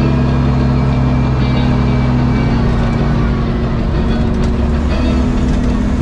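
John Deere wheel loader's diesel engine running steadily as the loader drives forward.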